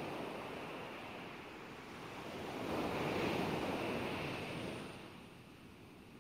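Heavy ocean surf breaking and washing up a sandy beach: a steady rush of waves that swells about three seconds in, then fades away near the end.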